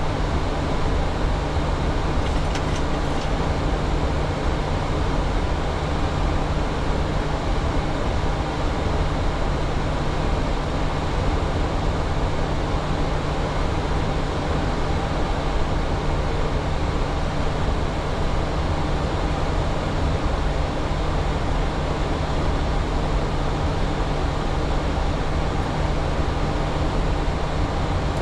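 Boeing 737 flight-deck noise in flight: a steady rush of air with a low hum running underneath.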